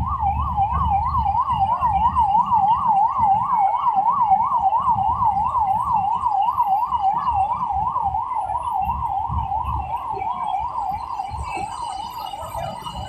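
Electronic siren warbling fast, its pitch swinging up and down about three to four times a second, fading away over the last few seconds. Under it runs the low rumble of a moving train.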